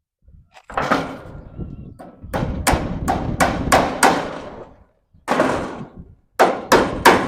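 Hammer blows on a wooden frame: a single strike, then a run of six quick strikes about three a second, and after a pause a few more in another quick group.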